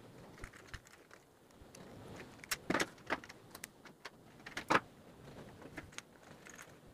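Scattered clicks and light knocks from a wired socket board and hand tools being handled on a wooden table, the loudest about two and a half to three seconds in and again near five seconds in.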